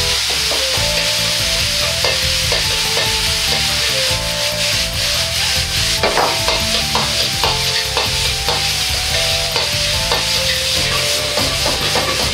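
Rice frying in a hot black iron wok, sizzling steadily while a metal wok ladle stirs, scrapes and clinks against the pan. The ladle strokes get busier and rhythmic from about six seconds in, as the rice is tossed.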